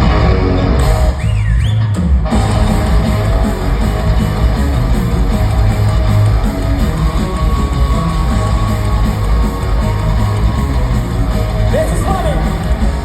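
Heavy metal band playing live, with loud guitars over bass and drums.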